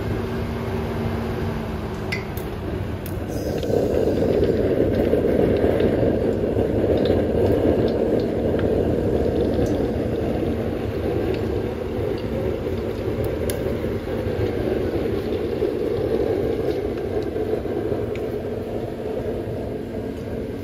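Electric centrifugal blower running and forcing air into a homemade used-oil burner, which burns with a steady rushing roar. A faint hum fades out about two seconds in, and the rushing grows louder about three and a half seconds in, then holds steady.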